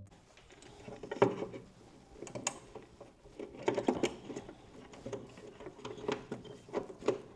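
Scattered light clicks, taps and rattles of hand work on furnace parts, such as handling the pressure switch and its fittings, with a few sharper clicks around one, two and a half and seven seconds in.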